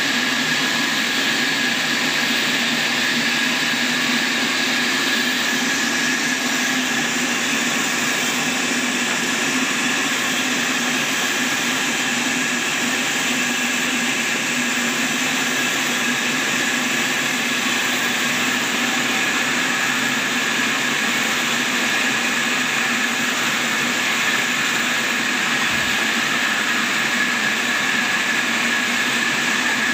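Sawmill cutting through a large squared log: a loud, steady mechanical whir with a constant high whine.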